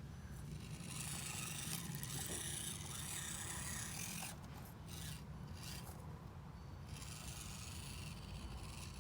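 Rasping scrape of RC vehicles moving over rough ground as one tows the other, louder from about one to four seconds in and again near the end.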